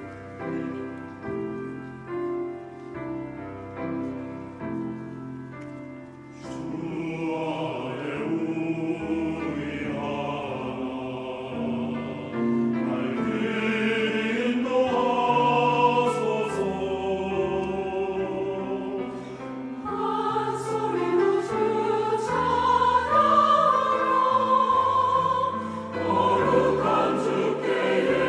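Large mixed church choir singing a Korean anthem with piano accompaniment. The piano plays alone at first, with chords about once a second, and the choir comes in about six seconds in.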